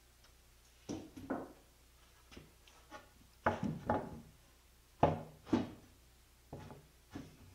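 Irregular knocks and thuds of wood on wood, about ten over several seconds, some in quick pairs, from work on a solid oak rabbit hutch.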